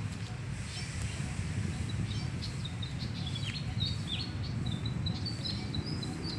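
Small birds chirping and twittering in quick, high notes, growing busier about two seconds in, over a steady low rumble.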